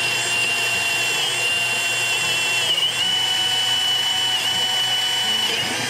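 Cordless drill running steadily under load, boring a twist bit down through a thick wooden board. Its whine sags briefly a few times as the bit bites.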